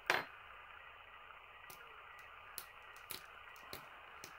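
Fingers handling a small clear plastic glazing piece while pressing tape onto it: one short sharp click right at the start, then a few faint, light ticks spread through the rest.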